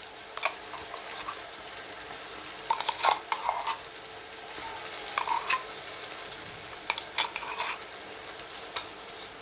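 Onions and ginger-garlic paste sizzling in hot oil in a pot, with a spoon stirring and knocking against the pot in a few short clusters. This is the stage of frying the paste until its raw smell goes.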